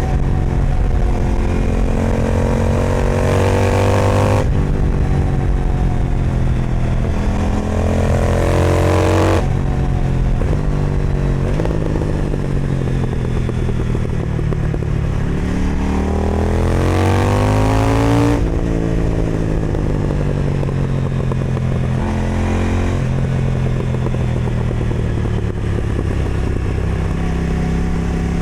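KTM Duke 990 twin-cylinder engine through an Austin Racing aftermarket exhaust, accelerating hard with its pitch rising and dropping sharply at upshifts three times, with a stretch of easing off in between. Wind rush on the microphone runs under it.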